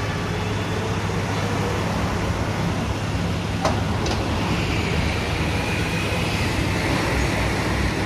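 A vehicle engine idling steadily with a low hum, with two sharp clicks about three and a half and four seconds in.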